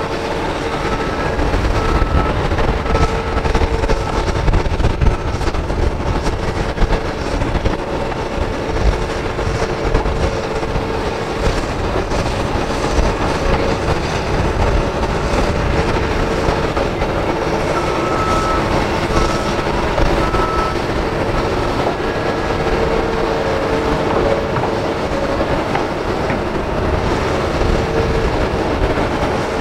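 Hitachi Zaxis 210LCH excavator working under load: a steady diesel rumble with a whine that comes and goes as it digs and swings.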